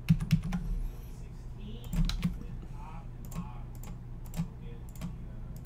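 Computer keyboard tapped in a few short clusters of keystrokes, loudest right at the start and again about two seconds in, over a low steady hum.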